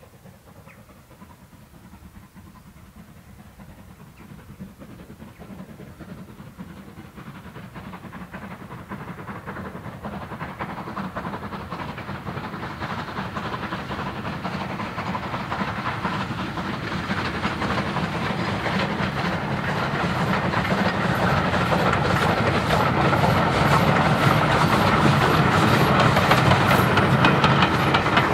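SR Merchant Navy Pacific No. 35006, a three-cylinder steam locomotive, hauling its train past, growing steadily louder as it nears. In the last several seconds the carriage wheels clatter rhythmically over the rail joints.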